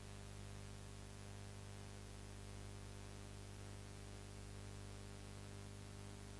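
Steady low electrical hum with a faint hiss. This is the blank audio track of a silent film transfer, with no sound from the scene itself.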